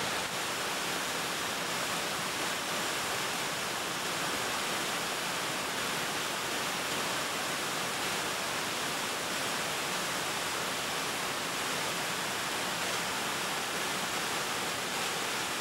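Small waterfall tumbling down a rocky slope: a steady, even rush of falling water.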